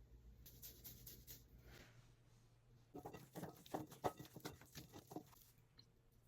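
Faint kitchen handling noises: light rustling, then a quick run of small taps and clicks for about two and a half seconds, as the marinade is being put together.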